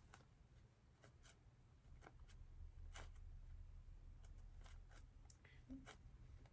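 Near silence: low room hum with faint, scattered small clicks and light rustles of hands handling materials at a workbench.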